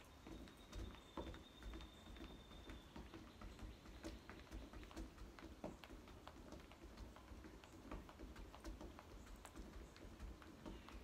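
Faint, uneven thuds and taps of feet hopping on one leg on a wooden deck. A thin, steady high tone sounds over the first three seconds.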